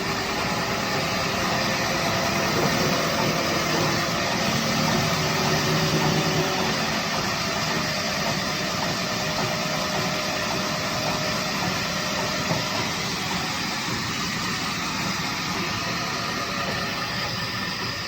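A woodworking machine running steadily, a constant even noise with faint steady tones.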